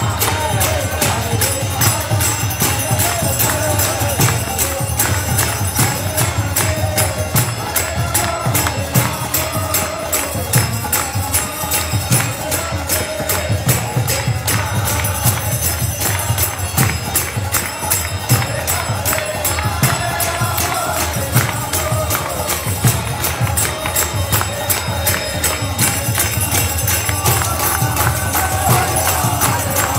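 Live kirtan: a group singing to a harmonium, with two-headed mridanga drums and a rapid, steady jingle of small hand cymbals, and the crowd clapping along.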